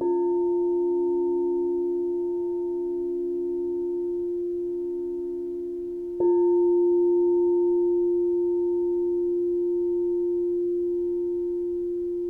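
Crystal singing bowl struck twice, right at the start and again about six seconds later; each strike rings on as a steady, pure tone with a fainter higher overtone, slowly fading.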